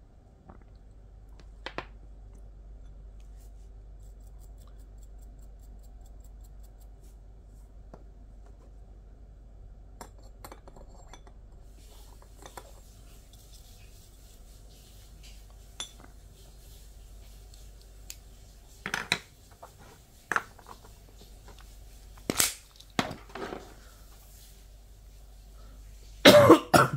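Small hard vaporizer parts and tools being handled and set down on a tabletop: scattered clicks and clinks, more frequent in the second half, with a short cluster of loud knocks near the end. A low steady hum runs underneath.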